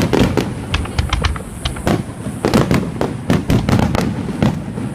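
Fireworks exploding overhead: a rapid, irregular series of sharp bangs and crackles, several in quick clusters, over a continuous low rumble.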